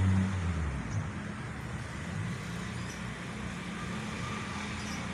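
Modified Honda cafe racer motorcycle's engine running, louder for about the first second and then settling to a steady low idle.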